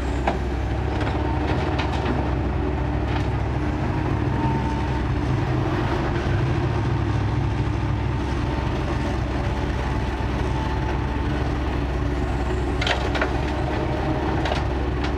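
Kobelco excavator's diesel engine running steadily with a steady hydraulic whine, and a few sharp knocks, once right at the start, a few in the first three seconds and a couple near the end.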